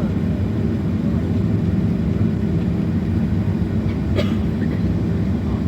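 Cabin noise inside a Boeing 737-900 moving on the ground: a steady low rumble of the CFM56 jet engines and the airframe and wheels, with a faint steady hum. A single short click about four seconds in.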